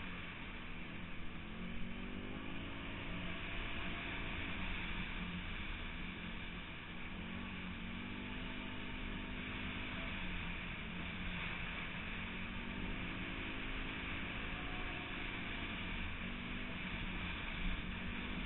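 Off-road vehicle's engine accelerating hard, its pitch climbing and dropping back several times as it shifts up through the gears. A constant rush of wind noise on the microphone runs underneath.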